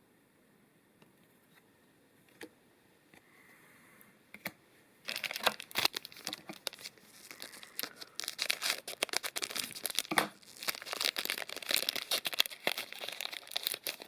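Magic: The Gathering booster pack wrapper being torn open and crinkled in the hands, a dense irregular crackling that starts about five seconds in after a few faint clicks.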